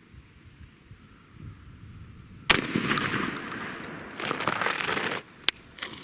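A single shotgun shot from a Stoeger shotgun fired with a trap load, a sudden loud blast about two and a half seconds in, followed by a couple of seconds of loud noise. A sharp click comes about five and a half seconds in.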